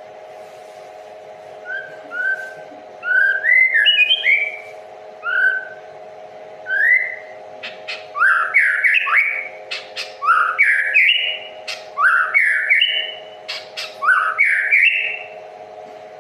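A songbird singing a run of short, rising whistled notes, a few spaced notes at first, then loud and quick from about halfway, with sharp clicks between the notes. A steady hum runs underneath.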